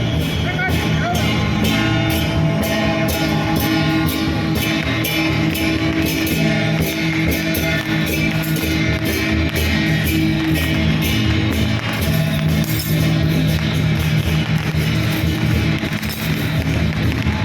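Loud music with guitar and a steady beat, with some singing.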